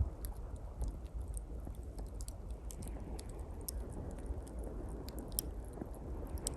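Small campfire of pine twigs crackling, with sharp pops scattered irregularly, over a steady low wash of sea waves.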